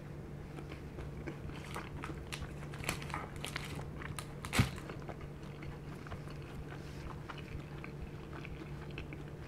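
Close-up chewing of fried dim sum, with small crunches and crackles through the first half. About four and a half seconds in there is one sharp click as chopsticks knock on a ceramic plate while picking up a flaky pastry. A low steady hum runs underneath.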